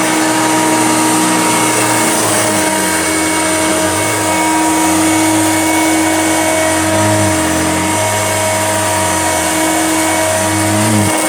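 Hoover Junior upright vacuum cleaner running steadily while pushed through a thick pile of dog hair and dirt, its lower hum dipping briefly a few times.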